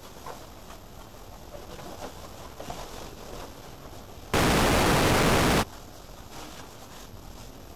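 A burst of loud static hiss, a little over a second long, that cuts in and out abruptly at an even level, laid over faint low background noise as a glitch effect.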